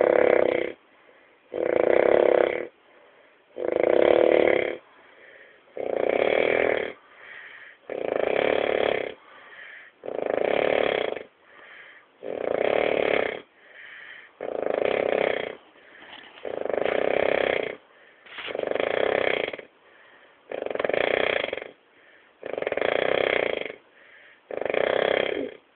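Snoring in a steady rhythm: a long snore about every two seconds, each lasting about a second, with a faint breath in the gaps between.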